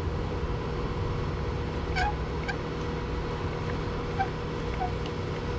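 A few short, sharp clinks and squeaks, about two seconds in and again near the end, as a workpiece is fastened to the drill press table with clamps, over a steady background hum.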